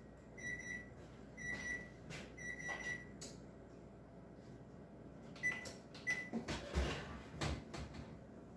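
Electric wall oven's timer beeping about once a second, signalling that the bake time is up, then two quicker beeps. Near the end come the clunks and knocks of the oven door being pulled open.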